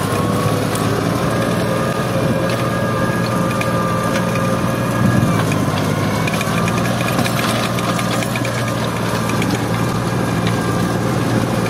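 Turbocharged Fiat 480 tractor's three-cylinder diesel engine running steadily under heavy load as it pulls a three-bottom plough through hard, dry, stony ground. The engine is labouring against the plough's draft but keeps pulling.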